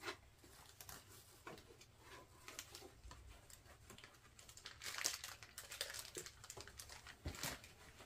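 Faint crinkling and rustling of packaging with scattered light knocks as the Rev-air dryer's base unit is unwrapped and handled, busiest about five seconds in.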